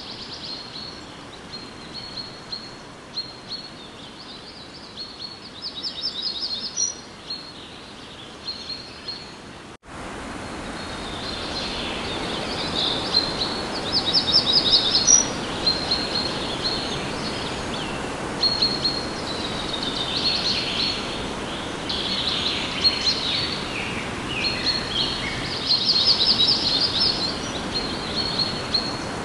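Recorded forest soundscape with many birds chirping and singing over a steady hiss. The sound cuts out abruptly about ten seconds in, then returns louder.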